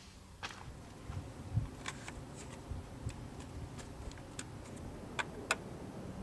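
Irregular light clicks and taps, a few every second, with some dull knocks, like parts and tools being handled.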